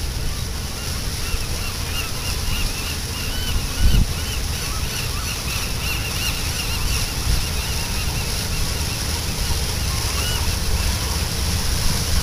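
A chorus of sea lions barking, rapid overlapping barks that die away about ten seconds in, over a steady rumble of wind on the microphone. A single thump about four seconds in.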